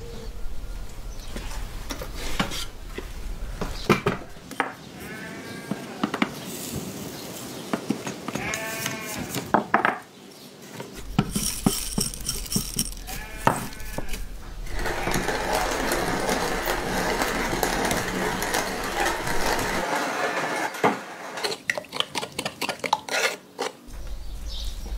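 A sheep bleats three or four times, with scattered knocks and clicks. Peppercorns then rattle into a cast-iron hand grinder, which grinds them with a rough, steady noise for about five seconds, followed by a run of quick clicks and taps.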